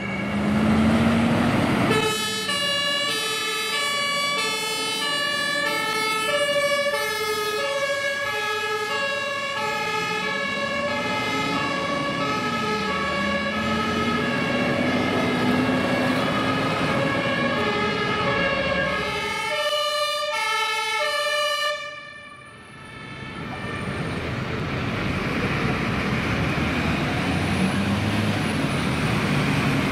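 German fire trucks' two-tone sirens (Martinshorn) alternating high and low, over diesel engines pulling away. About two-thirds through, the siren cuts off and the sound drops. A truck engine running with traffic noise follows.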